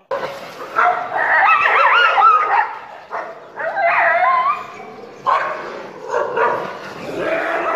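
Several stray dogs barking and yelping, with long wavering high cries about a second in and again near the middle.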